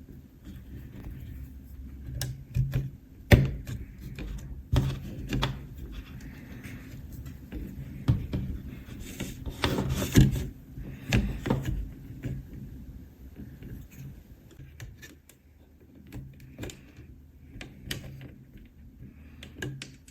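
Irregular clicks, knocks and rattles of the IBM Model M keyboard's plastic case and new cable being handled and fitted, with a faint low hum underneath.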